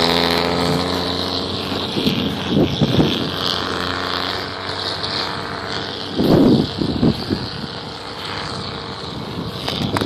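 A vehicle engine running at a steady pitch, fading after about two seconds. Wind buffets the microphone twice, around three seconds and around six to seven seconds in.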